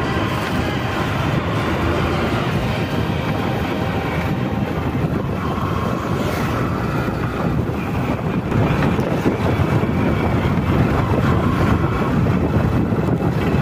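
Motorcycle running at riding speed, with wind rushing over the microphone; a little louder from about eight seconds in.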